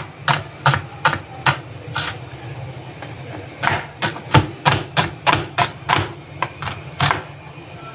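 Chef's knife chopping red onion on a plastic cutting board: a run of sharp knocks of the blade on the board, about three a second, with a short pause a couple of seconds in.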